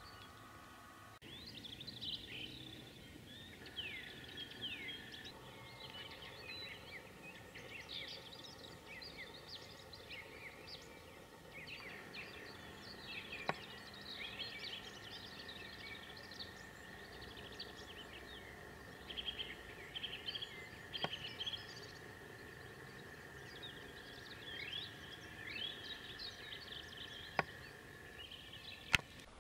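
Faint chorus of songbirds: many short chirps and whistled phrases, with a sharp click near the end.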